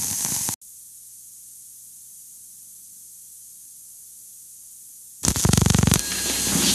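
Hiss and crackle of a worn early sound-film soundtrack. It cuts off about half a second in to a faint hiss with a low hum. About five seconds in, a loud, fast buzzing run of clicks lasts under a second before the hiss and crackle return.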